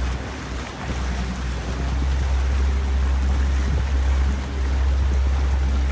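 Steady low wind rumble on the microphone, with water washing and splashing around boat hulls.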